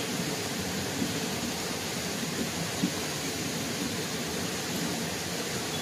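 Steady rushing of flowing river water, with two faint knocks about one and three seconds in.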